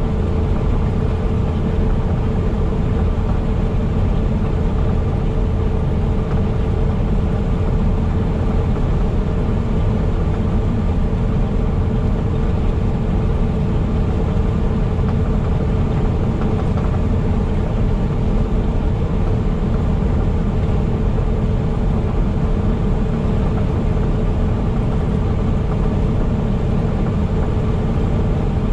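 Semi truck driving at a steady speed: a constant drone of engine and road noise, with a steady hum and no change throughout.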